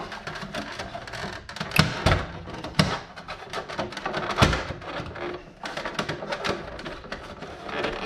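Plastic Tesla Model 3 Aero wheel cover being tugged and pried off the wheel by hand: a run of clicks and knocks as its retaining clips give, with a few sharper knocks, the loudest about four and a half seconds in.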